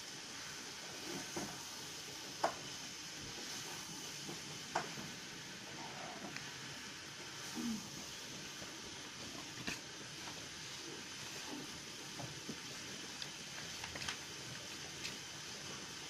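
Steady low hiss of room tone, with scattered faint clicks and taps, the sharpest about two and a half seconds in.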